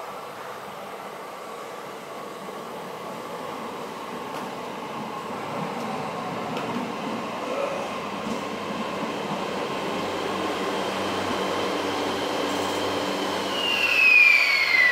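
Electric commuter train rolling into a station, its running noise and a steady motor whine growing louder as the cars pass. Near the end, a loud whine falls steeply in pitch.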